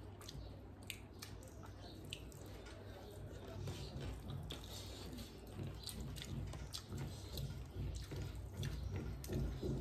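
Eating sounds close to the microphone: wet chewing and scattered soft clicks as fingers mix rice and curry on a plate, with a bite into a fried fritter near the end.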